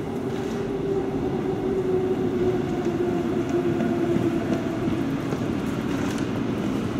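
Train in an underground station: a steady rumble with a humming whine that slowly drops in pitch.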